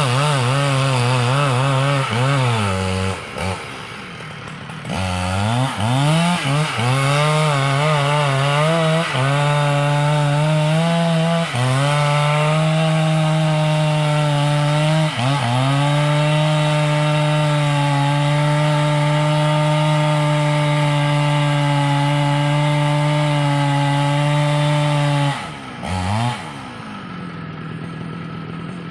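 Two-stroke chainsaw working a log: the engine is blipped and wavers in pitch at first, then holds a steady high pitch for a long cut, and drops back to idle near the end.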